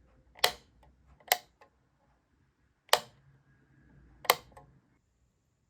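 Four sharp clicks from hard objects being handled, spaced one to one and a half seconds apart, each followed by one or two fainter clicks.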